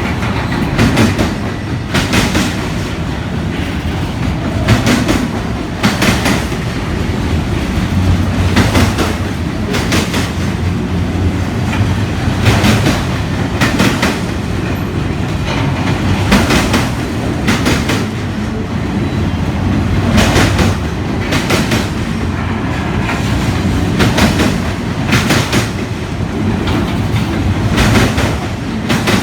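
Autorack freight cars of a Norfolk Southern train rolling past with a steady low rumble, the wheels clacking over rail joints about once every second or so.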